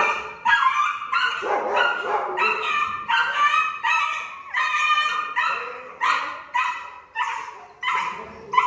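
A dog barking over and over in an even rhythm, about two high-pitched barks a second.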